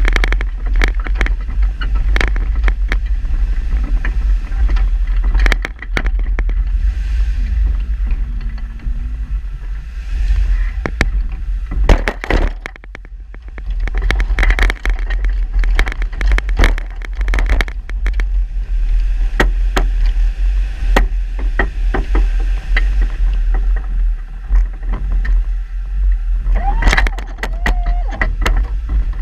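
A vehicle plowing snow with a front-mounted plow blade: a steady low engine rumble under frequent sharp clicks and rattles from the blade's chains and frame, easing briefly about halfway through.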